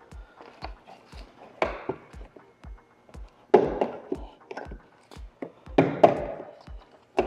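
Loud plastic knocks and clatters, four of them a second or two apart, as the front bumper's plastic tabs are worked loose, over background music with a steady bass beat about twice a second.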